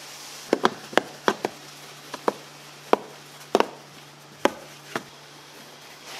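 About a dozen sharp, irregular knocks and taps of a hand detailing brush striking the hard plastic trim of a car door while the panel is scrubbed, over a faint steady hum.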